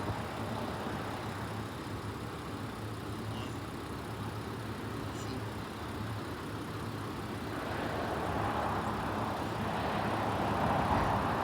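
Roadside vehicle noise: a car engine idling steadily, with the rushing noise of a passing vehicle swelling over the last few seconds.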